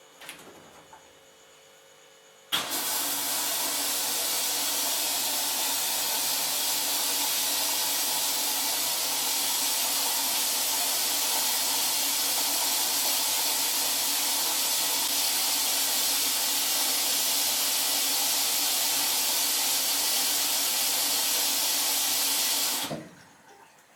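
Esatto front-loading washing machine taking in water at the start of a wash cycle: the inlet valve opens suddenly and mains water hisses in steadily for about 20 seconds, then shuts off.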